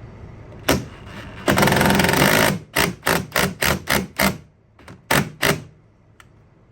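Cordless impact driver hammering a bolt into a wooden headboard: one long run, then a string of short trigger pulses to seat it flush.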